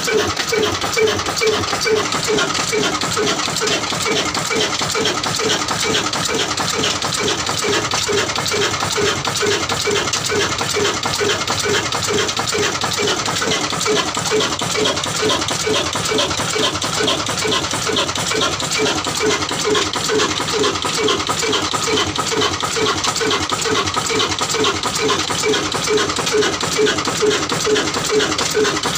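Old desi stationary diesel engine of the Ruston type running steadily, each firing stroke giving an even, rhythmic knocking beat.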